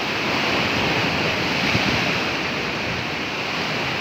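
Ocean surf surging and breaking against a rocky shore, a steady rush of churning water.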